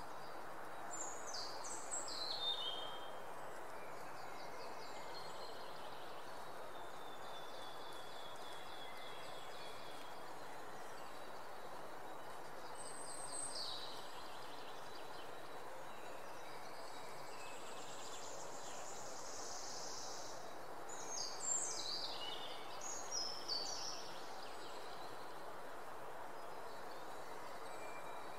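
Outdoor ambience: a steady background hiss with birds chirping, quick high falling chirps in clusters about a second in and again around twenty seconds in.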